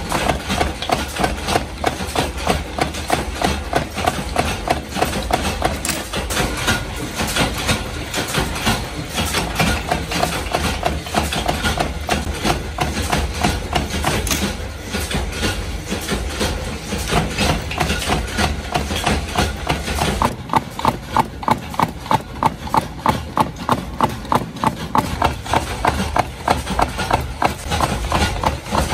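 A small belt-driven power press punching round blanks from metal strip, its die striking in a fast, even rhythm of about three strokes a second over the steady hum of the motor and flywheel. From about two-thirds of the way through, the strokes sound sharper and clearer.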